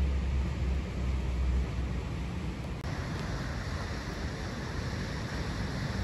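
River water rushing in a steady hiss, with wind buffeting the microphone as a low rumble for the first second and a half.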